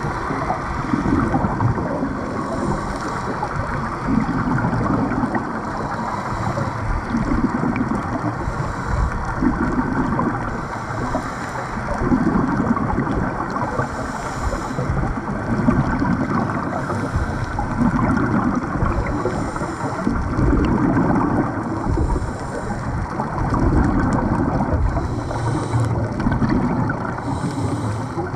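Muffled underwater water noise heard through a GoPro's waterproof housing: a steady rushing, swelling in surges about every two to three seconds.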